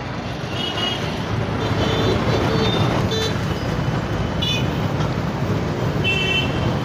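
Roadside traffic noise: a steady hiss, with short, high vehicle horn toots several times.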